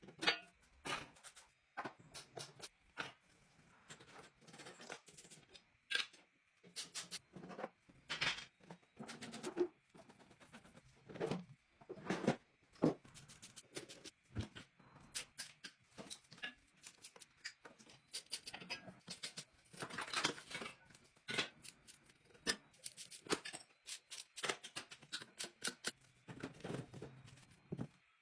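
Workshop hand-tool work on an old ATV during its restoration: an irregular run of short metallic clicks, knocks and scrapes as parts are handled and worked on.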